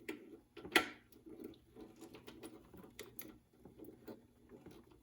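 Small clicks and scrapes of hardware being worked by hand as a screw or nut is turned to catch its thread, with one sharper click a little under a second in.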